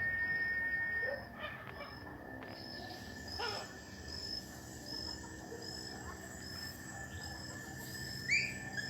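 Cicada singing a steady, high-pitched whistling tone that drops sharply in loudness about a second in and then carries on faintly. Short high chirps repeat evenly throughout, and a few rising bird-like chirps come near the end.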